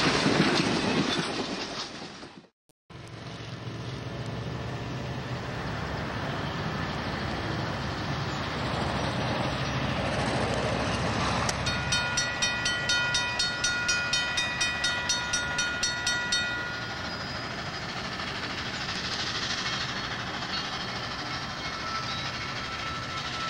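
Passenger coaches of a steam excursion train rolling past with a clickety-clack of wheels, cut off suddenly after about two seconds. Then the steady sound of an approaching steam locomotive working. About halfway through, a rapid ringing of about five strikes a second sounds for some four seconds.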